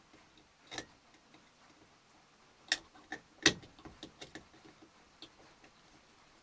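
A Leatherman multi-tool clicking and tapping against the metal terminal screw and plastic body of a wall thermostat as a wire is taken off. There are a handful of sharp clicks, the loudest about three and a half seconds in, then a short run of lighter ticks.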